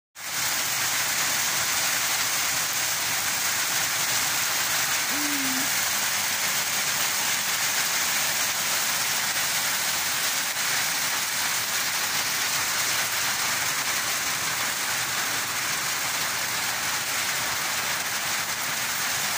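Heavy rain falling steadily on paving stones, an unbroken hiss of pouring water.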